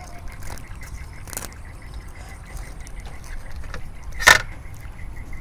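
Crispy rice pancake (bánh xèo) crackling as it is torn and handled by hand, with a faint crackle about a second in and one sharp, loud crunch about four seconds in, over a low steady rumble.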